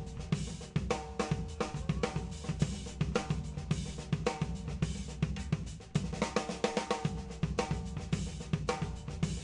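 Drum kit played live in a busy run of rapid snare, tom, bass-drum and cymbal strokes, including K Zildjian cymbals, as in a drum solo.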